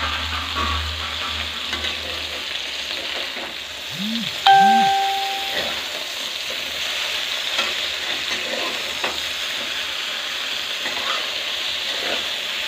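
Stuffed okra sizzling in mustard oil in a kadhai, with a metal spatula scraping the pan as the pieces are turned. About four and a half seconds in, a single bright metallic ding rings out and fades over about a second.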